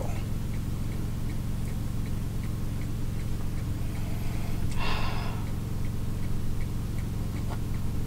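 Regular light tick-tock of a solar-powered coffee-man figurine over a steady low hum. About five seconds in comes a short slurp as a cappuccino is sipped.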